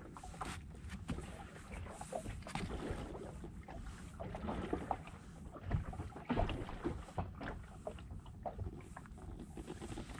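Drifting inflatable boat at sea: a low rumble of wind on the microphone, with scattered light knocks and clicks at irregular moments.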